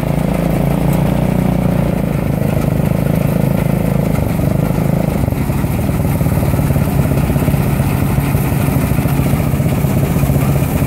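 Fahr M44 combine harvester running steadily while cutting wheat: a constant engine hum together with the threshing machinery. A higher whine fades out about five seconds in.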